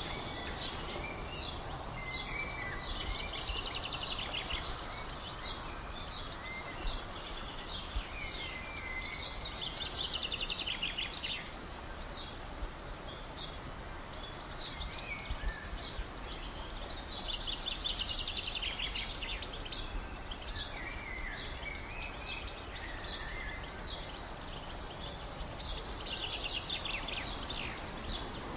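Outdoor ambience of songbirds: many short, high chirps throughout, with a longer trilled song phrase several times, over a steady background hiss.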